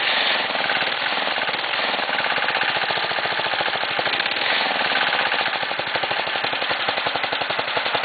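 Small single-cylinder gasoline engine running fast and steady through its muffler, a rapid, even stream of exhaust pulses with no change in speed.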